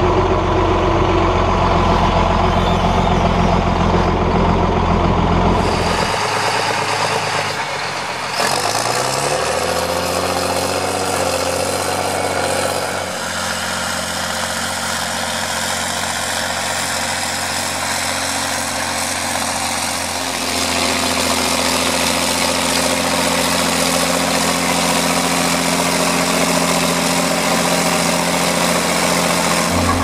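John Deere 4755's six-cylinder turbo diesel running under load while pulling a five-furrow plough through the soil. The sound changes abruptly about six seconds in and again about eight seconds in, the engine note then rising over the next few seconds, and it shifts once more about twenty seconds in.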